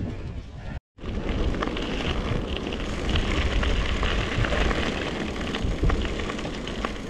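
Wind buffeting the microphone of a camera riding on a moving mountain bike, a heavy fluctuating rumble with scattered clicks and rattles from the bike over the ground. The sound cuts out completely for a moment just under a second in.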